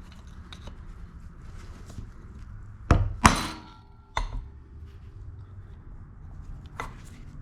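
Hammer tapping a wide-blade screwdriver to bend the metal tabs of a door lock cylinder's cover down. Two sharp strikes about three seconds in, another a second later and a lighter one near the end, each with a brief metallic ring.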